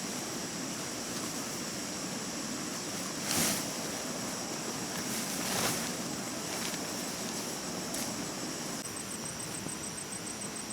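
A stream's water rushing steadily, with two brief louder noises about a third and halfway through, and a faint steady high-pitched tone above.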